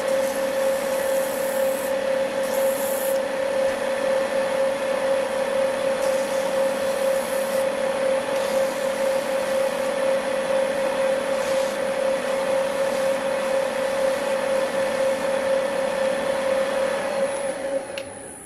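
A wood lathe runs with a steady whine while a hand-held pad rubs against the spinning painted wooden workpiece, making a steady rubbing hiss. Near the end the lathe is switched off and the sound dies away.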